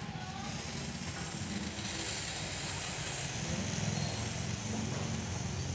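Aerosol spray can hissing steadily as it sprays white artificial snow onto a die-cast toy car, over a low steady rumble.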